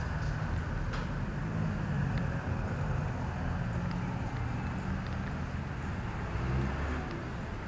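Street traffic noise, with a vehicle engine running close by as a low, steady hum that shifts slightly in pitch.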